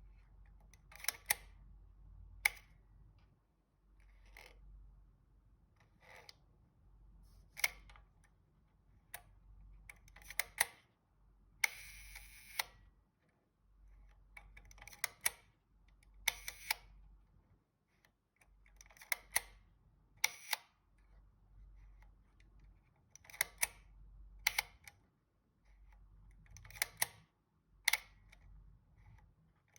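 Seagull 4B twin-lens reflex film camera being worked: repeated sharp mechanical clicks, often in quick pairs, every one to three seconds, as the leaf shutter is cocked and released. About twelve seconds in there is a longer mechanical sound lasting about a second.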